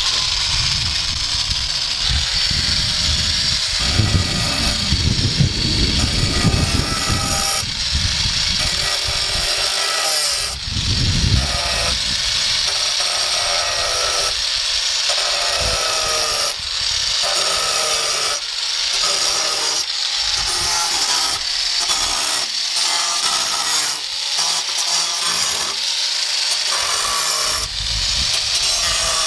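Handheld electric power saw running and cutting almost without a break, a steady harsh high buzz whose pitch wavers slightly as it bites.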